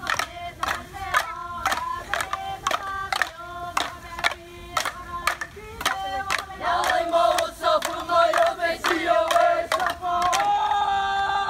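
Yapese bamboo stick dance: a group of dancers chanting together over sharp clacks of bamboo sticks struck in a steady rhythm, about three a second. Near the end the chant holds one long note and the clacks thin out.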